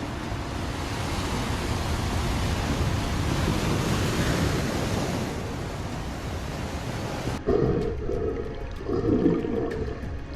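Steady rushing noise of wind and sea, swelling and easing, for about seven seconds. It then gives way to a quieter stretch with two short loud outbursts.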